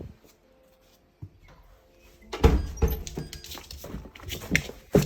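Border collie whimpering and scrabbling about, starting suddenly about two seconds in after a quiet stretch: a dog's excited greeting.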